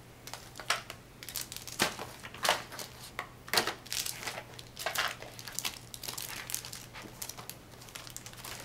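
Crinkling and rustling of packaging and papers, with irregular clicks and crackles, as craft supplies are rummaged through in search of a stamp set.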